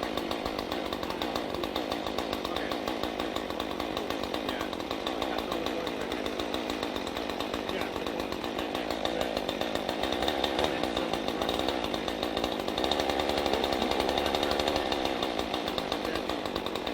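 Two-stroke chainsaw running steadily, growing louder and fuller from about nine seconds in until about fifteen seconds, then easing back.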